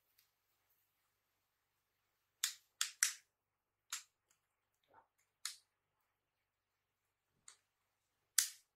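Sharp clicks and knocks of laptop parts being pressed and snapped into place by hand while a drive is fitted: a quick group of three, a few single ones, and a loud click just before the end.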